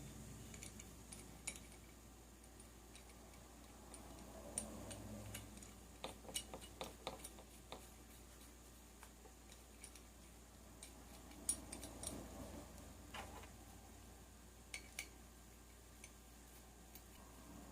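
Faint, irregular metallic clicks and taps of a wrench working on a small two-stroke engine's flywheel, bunched about six and twelve seconds in, over a low steady hum.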